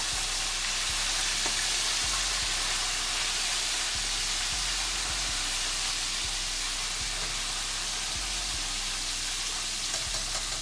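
Food frying in a pan of hot oil: a steady, even sizzle.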